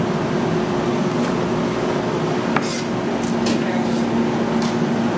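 Steady hum and hiss of kitchen machinery such as ventilation or refrigeration, with a few light clicks and knocks from about halfway on.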